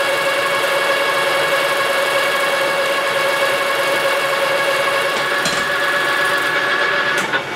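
Engine lathe running and turning down the outside diameter of an aluminum blank: a steady pitched whine over the hiss of the cut. A few clicks near the end.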